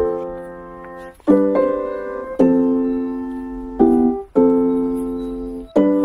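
Background music: slow piano chords, each struck and left to fade, about one every second or so.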